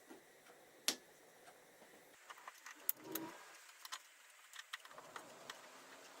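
Plastic trim covers being prised out with a small screwdriver: a sharp click about a second in, then a cluster of small clicks and taps of plastic and metal.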